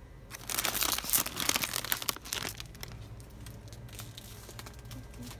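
A plastic bag of chips being handled and crinkling, dense for the first couple of seconds, then a few lighter crackles.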